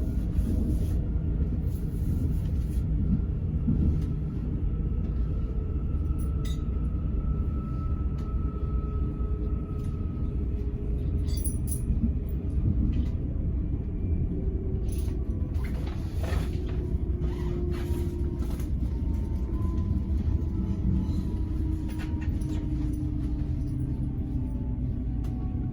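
A passenger train running, with a steady low rumble, faint whining tones that slowly drift in pitch, and a few scattered clicks.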